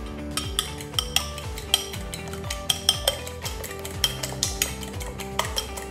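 Eggs being beaten by hand in a bowl, the utensil clicking rapidly and irregularly against the bowl's side, over background music.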